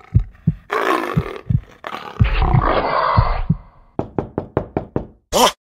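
Dramatic intro sound effects: deep bass booms under two long, rough noise swells, then a quickening run of about eight low thumps and a short swoosh near the end.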